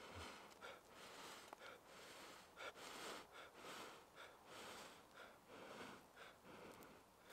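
Faint, repeated puffs of breath blown into a dry-grass tinder bundle holding a char cloth ember, about two blows a second, coaxing the smouldering bundle toward flame.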